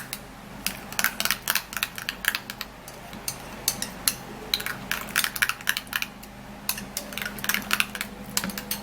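A spoon clicking against a bowl as crushed vitamin C is stirred into blended papaya: a run of quick, irregular clicks.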